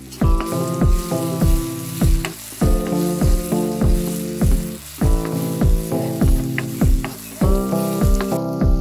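Shallots, tomato and chili flakes sizzling in hot oil in a wok as a spatula stirs them, under background music with a steady beat.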